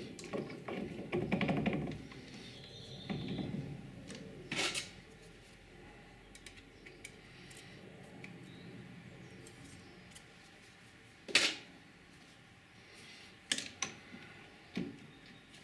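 Metallic handling noises at a lathe: a busy clatter of rattles and knocks in the first few seconds, then single sharp clicks and knocks spaced several seconds apart.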